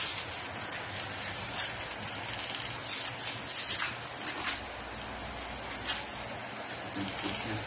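Plastic wrapping crinkling and rustling as it is pulled off a glass bottle by hand, in irregular bursts over a steady hiss.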